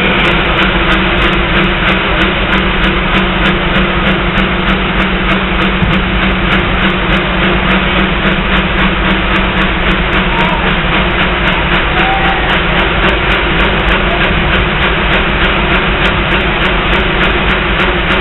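A competition pulling tractor's engine running at full throttle during a pull: a loud, steady engine noise that holds without a break.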